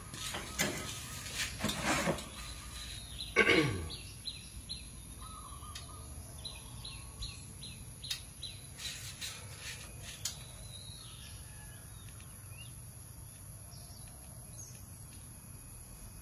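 Outdoor ambience of birds calling: a few louder, downward-sweeping calls in the first four seconds, then short high chirps that thin out after about ten seconds, over a steady low background hum and a faint high steady insect drone.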